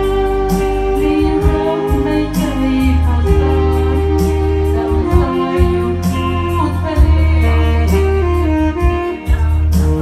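Music: a slow piece with a held melody line stepping from note to note over sustained low bass notes, and a light stroke about every two seconds.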